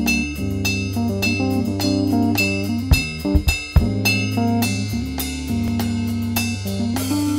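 Instrumental stretch of a hip-hop track with no rapping: guitar and bass guitar over a drum kit beat.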